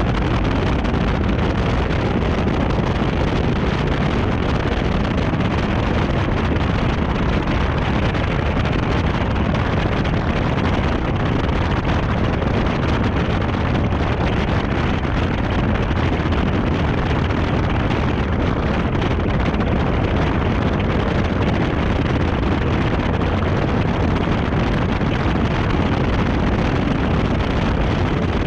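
Steady wind rush buffeting a camera microphone mounted outside a Chevrolet Camaro beside its wheel, mixed with tyre and road roar, at about 70 to 80 mph on a paved oval.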